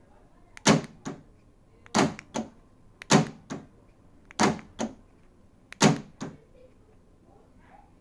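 Aftermarket electric door lock actuator in a C3 Corvette door, cycled five times and throwing the lock rod and latch. Each cycle is a sharp clunk followed by a softer clunk a moment later, repeating about every second and a half.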